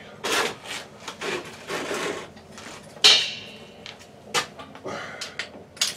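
Handling noise: scrapes and knocks of objects being moved about, with one sharp metallic clink about three seconds in that rings briefly.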